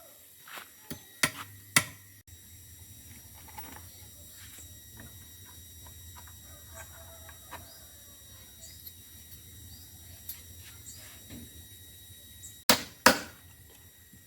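Sharp knocks on wood, two quick pairs of strikes, one about a second in and one near the end, over a steady low hum.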